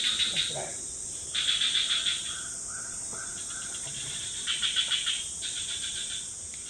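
Tropical forest insects: a steady high-pitched drone, with a cricket-like insect trilling in repeated bouts about a second long.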